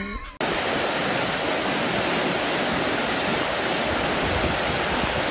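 Steady rush of a rocky mountain creek's white-water rapids, starting abruptly about half a second in.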